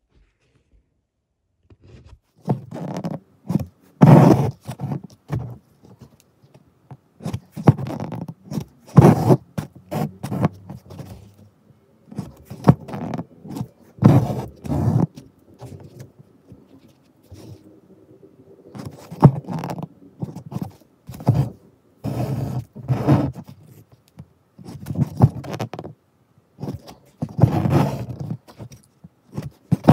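Hand embroidery in chain stitch: needle and thread drawn through fabric and fingers handling the cloth, a string of short pulls and rubs a second or two apart, loudest about four and nine seconds in.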